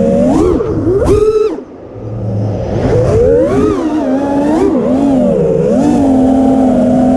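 A 5-inch FPV racing quad's brushless motors and three-blade HQ 5x4.5x3 props whine, rising and falling in pitch with the throttle, heard through the onboard GoPro. About a second in they punch up to a sharp high whine. The throttle is then chopped, the sound drops away briefly, and it winds up again to a fairly steady whine.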